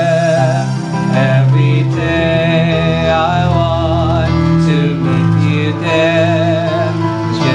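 Christian worship song: a singer holding long, wavering notes over guitar and bass accompaniment.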